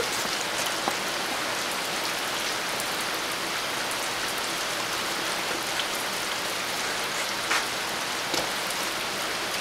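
Steady rain falling, an even hiss with a few faint drops or ticks standing out.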